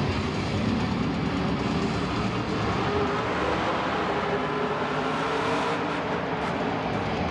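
Monster truck's supercharged V8 engine running hard, a loud, steady din of engine noise.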